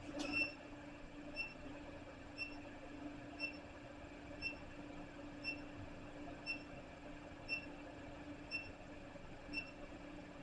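Faint, evenly spaced ticking, about once a second, over a steady low hum.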